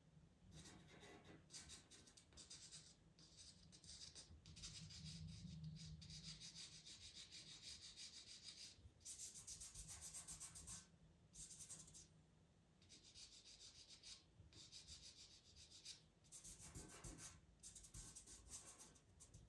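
Faint, rapid scratching of a pastel pencil's tip on Pastelmat paper: short quick strokes in runs of a few seconds with brief pauses, as colour is hatched into the texture.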